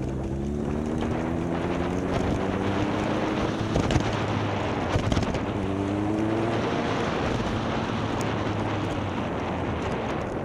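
Motorcycle engine accelerating, its note climbing for a few seconds, breaking off around the middle with a couple of knocks, then climbing again and settling to steady running. Wind rushes over the microphone throughout.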